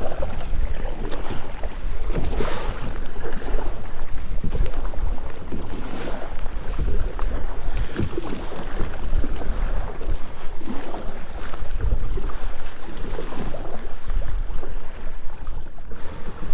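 Strong wind buffeting the microphone while choppy waves slap and splash against a fishing kayak, with water coming over the boat.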